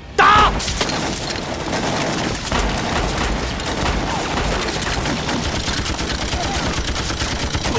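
Battle gunfire: a loud shot about a quarter second in, then dense, continuous volleys of rifle and rapid gunfire.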